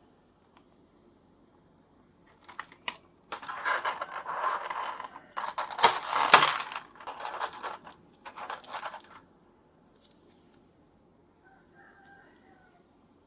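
Toy packaging being handled and opened: rustling and crackling in bursts for several seconds, loudest about halfway through, with a few sharp clicks.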